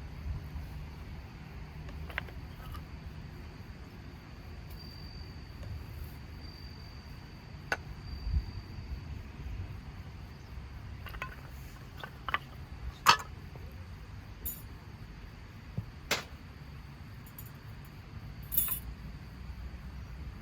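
Scattered light clinks and knocks, about ten over the stretch with the loudest about two-thirds of the way in, over a steady low rumble.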